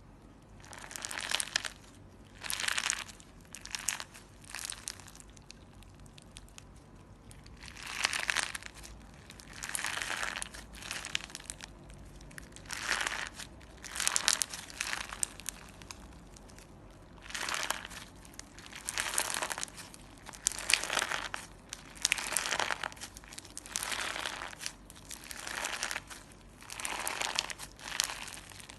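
Clear slime with glitter and small balls mixed in, squeezed and worked by hand: repeated crackling, crinkling squishes about once a second, with a couple of short pauses.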